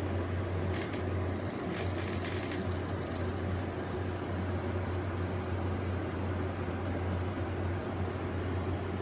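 Steady low mechanical hum with a faint hiss, and a few soft clicks about one and two seconds in.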